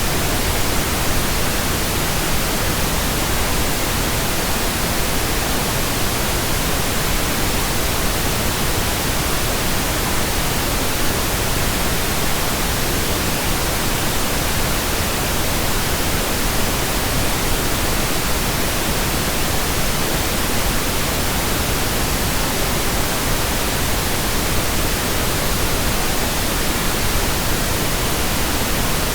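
Continuous pink noise: a steady, even hiss across the whole range from deep to high, with no change or break.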